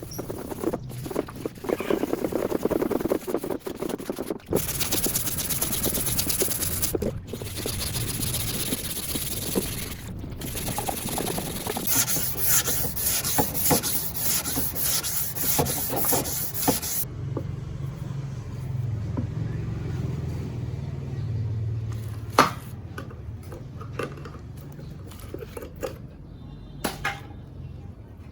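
Workshop work sounds in a series of short edited clips: abrasive rubbing and scraping, then a low steady hum with a few sharp clicks near the end.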